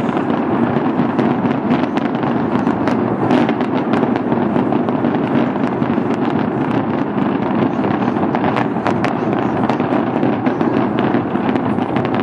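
Large fireworks display: a dense, unbroken barrage of bursts with many sharp crackles and pops.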